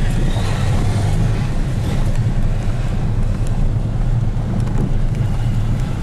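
Steady low rumble inside a car's cabin as it drives slowly over a cobblestone street, tyres drumming on the stones.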